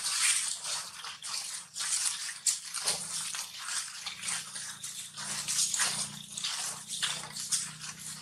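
Dry fallen leaves rustling and crunching under a long-tailed macaque's hands and feet as it walks and forages, in irregular crackles several times a second.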